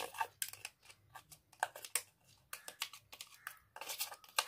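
Steel spoon scraping and tapping on an orange plastic hand citrus juicer, clearing pulp and seeds off the reamer: a run of short, irregular scrapes and clicks.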